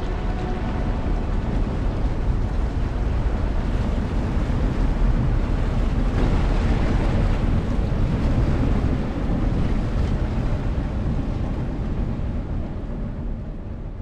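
Low, steady rumble of a cargo ship passing, with wind buffeting the microphone; it swells to its loudest in the middle and eases off near the end.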